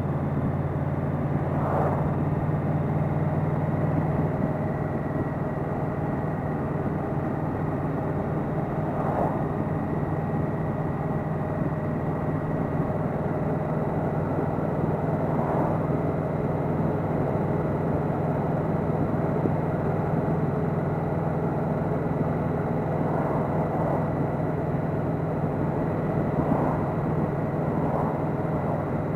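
Yamaha Venture touring motorcycle's V4 engine running steadily on stock mufflers while riding, as an even low drone mixed with road and wind noise.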